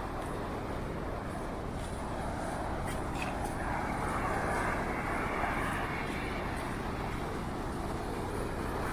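Ocean surf: a steady wash of waves, with one wave breaking and washing in about four seconds in.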